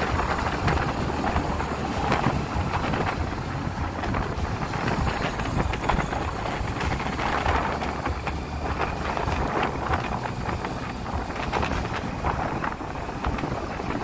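Wind buffeting the microphone of a camera riding along a road in a moving vehicle, a gusty rush over a low rumble that rises and falls.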